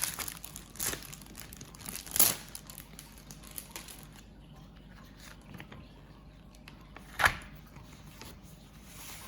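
Packaging of a paint set crinkling and rustling as it is handled and opened, with a couple of sharp knocks, one about two seconds in and one about seven seconds in.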